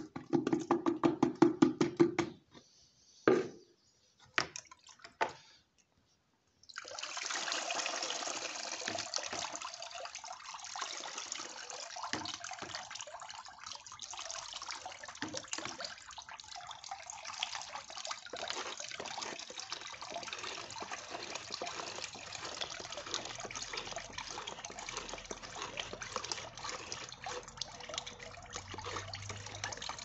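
Liquid poultry-manure steep being strained through a sieve into a plastic basin. First comes a couple of seconds of rapid rattling and a few knocks as the sieve is handled. After a short pause, a steady trickle and splashing of liquid draining through the mesh carries on to the end.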